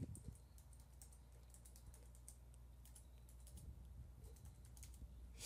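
Faint typing on a computer keyboard: an uneven run of quick key clicks over a low steady hum.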